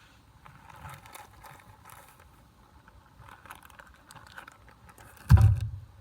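Light rustling and scraping of things being handled, then one loud dull thump a little after five seconds in.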